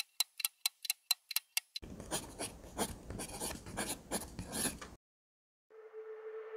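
Title-animation sound effects: a run of sharp clicks, about four a second, then pen scribbling on paper for about three seconds. After a short silence, a steady tone and rising swell begin near the end.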